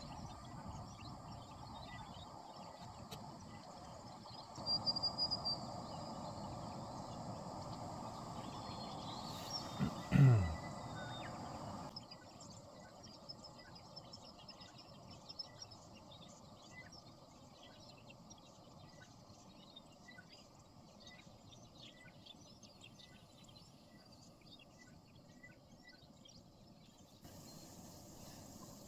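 Outdoor bush ambience. A steady rushing noise runs for about twelve seconds, with a brief loud falling tone about ten seconds in. After that comes a quieter stretch of small high chirps repeating a little more than once a second.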